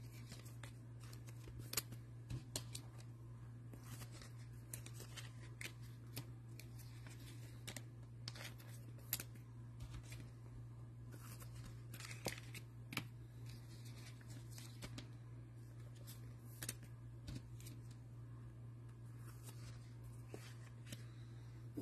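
Quiet handling sounds: scattered light clicks and rustles over a steady low hum.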